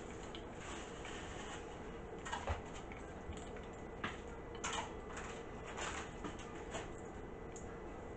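A few faint, scattered knocks and clicks from someone moving about the kitchen out of sight, over a steady low hum.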